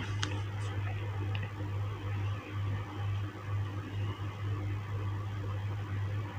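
Steady low hum that swells a little, under faint room noise, with a couple of faint light clicks about a second in.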